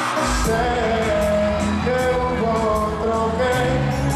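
Live pop concert music through the PA, with a singer's voice over the band. A deep bass and beat come in just after the start, with a steady high tick above.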